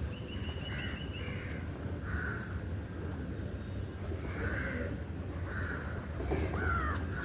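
Crows cawing, about seven separate caws spread through, over a steady low rumble.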